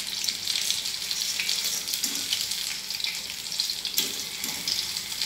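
Battered green chillies (chilli bajji) sizzling as they deep-fry in hot oil in a black iron wok: a steady crackling hiss, with a light click about four seconds in.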